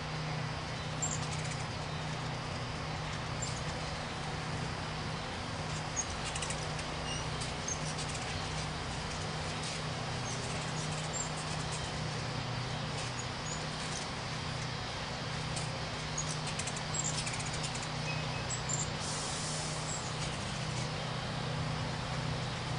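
Ruby-throated hummingbirds giving scattered short, high chips around a feeder, over a steady low hum and background hiss.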